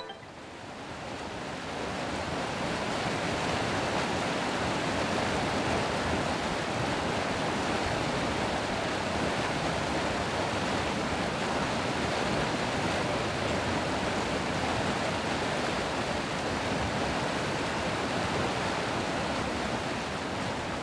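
Steady rushing of water, fading in over the first couple of seconds and then holding even.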